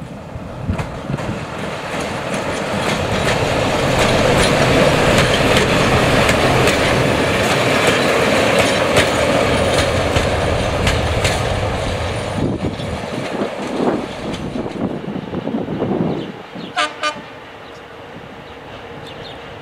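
Diesel-hydraulic shunting locomotive running light past at close range: engine running with wheels clicking over the rail joints, rising to a peak as it passes and then fading away. A brief shrill tone sounds near the end.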